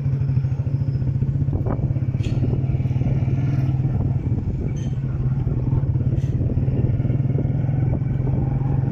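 Motorcycle engine running at a steady low speed, heard from the bike itself while riding, with a few light knocks and rattles now and then.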